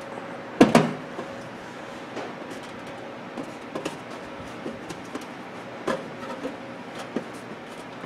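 Hands working inside a microwave oven's metal cavity, fitting a replacement waveguide cover and its clamp: a loud clatter just under a second in, then scattered light knocks and clicks, over a faint steady hum.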